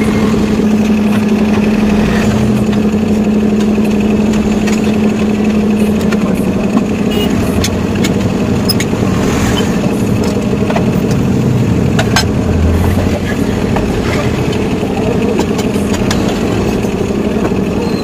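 Steady drone of a tyre-shop machine's electric motor, with a few sharp metallic clicks from the tyre-changer work about nine and twelve seconds in.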